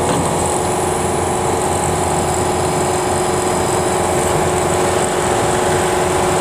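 Kubota DC-105X combine harvester's diesel engine running steadily while the mired machine is towed out of the mud.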